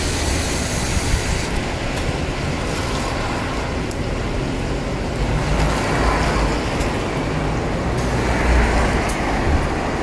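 A bus's engine running as it stands at the stop, a steady low rumble that swells a little in the second half, over the hiss of traffic on a wet street.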